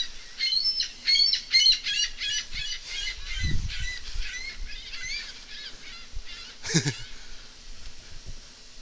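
A flock of gulls calling, many short high-pitched calls overlapping, thickest in the first few seconds and thinning out after. A low thump comes about halfway through.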